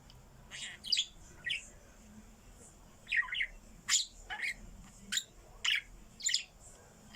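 Pet bird giving a series of about nine short, harsh, cough-like calls, with a pause of about a second and a half between the third call and the rest.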